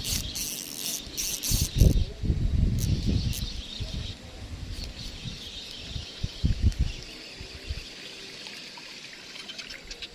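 Steady high insect buzz with irregular low thumps and rustling of handling, heaviest in the first seven seconds, and a few sharp clicks near the start.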